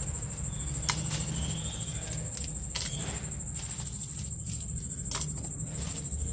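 Dried red chillies dropped by hand into a stainless-steel mixer-grinder jar: four sharp clicks against the metal, over a steady low hum.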